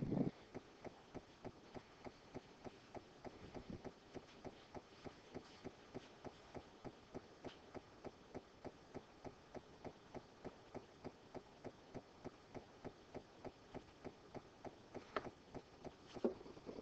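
Faint, steady, rapid ticking, about three to four ticks a second, like a clock's escapement. A short knock comes right at the start, and a couple of louder clicks come near the end.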